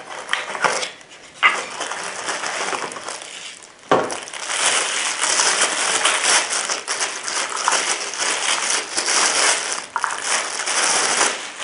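Packaging crinkling and rustling as it is unwrapped and handled, with a sharp knock about four seconds in.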